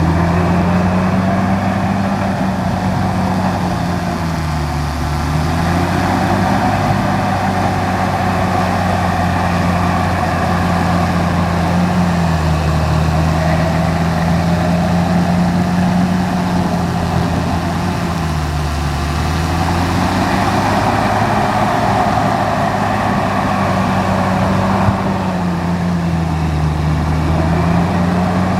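Large bulldozer's diesel engine running hard and steadily, its pitch dipping briefly and recovering about every six to seven seconds.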